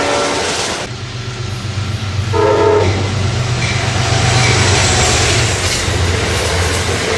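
Passenger train passing with a steady low rumble. Its horn sounds and cuts off abruptly about a second in, then gives another short blast at about two and a half seconds.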